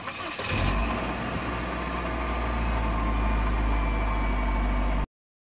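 2001 Saturn SL1's 1.9-litre four-cylinder engine, with a new EGR valve fitted, heard from inside the cabin: a short burst of cranking as it starts, then a steady idle that cuts off abruptly near the end.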